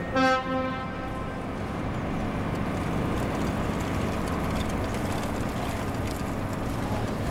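City street traffic noise, steady and even, with a short loud ringing tone about a quarter second in.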